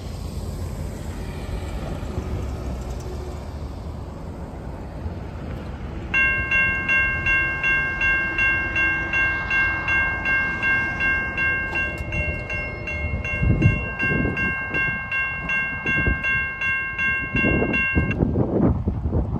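Railroad grade-crossing warning bell starts about six seconds in and rings at roughly two strokes a second, warning of an approaching train, then stops abruptly once the gate arms are down near the end. A few low rumbles come through in the second half.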